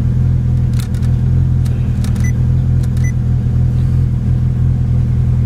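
Honda Integra's four-cylinder engine idling steadily, with a few faint clicks over it.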